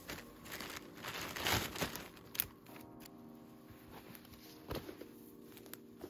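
Rustling and crackling of something being handled, rising to a burst about a second in, with a sharp snap soon after and another near the end, over faint background music.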